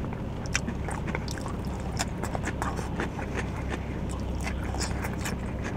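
Chewing of stir-fried garlic green beans: irregular small crunches and clicks, over a low steady hum.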